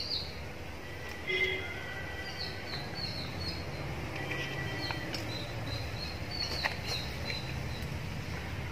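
Small birds chirping in the background, short high calls repeated on and off, over a low steady hum.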